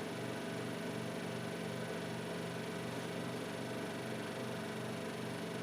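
A steady low hum with a faint, even pulse about twice a second, over a soft hiss: a small machine running indoors.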